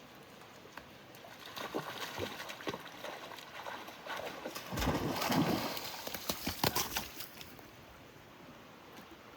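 Horses wading in a shallow brook: irregular hoof knocks on stones and splashing, with a louder splash about halfway through.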